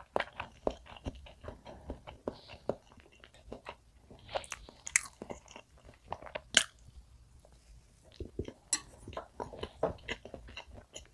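Close-miked chewing of soft mugwort castella spread with gold kiwi jam: irregular wet mouth clicks and smacks, with a few sharper clicks in the middle.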